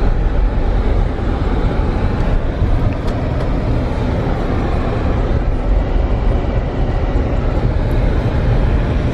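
Steady road noise heard from inside a moving car's cabin: a low, even rumble of engine and tyres.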